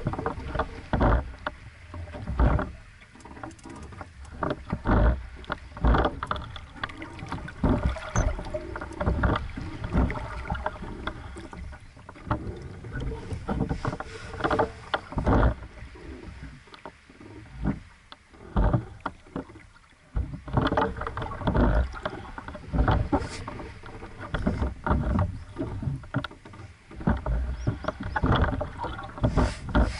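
Small waves slapping and splashing irregularly against the hull of a small sailing dinghy moving slowly, a few sharp slaps a second over a constant low wash.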